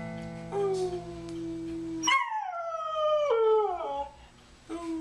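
A dog howling along to an acoustic guitar. The last strummed chord rings out as a faint howl begins, then a loud howl starts high about two seconds in and slides down in pitch, drops lower in a second falling phrase, and fades. Another howl starts just before the end.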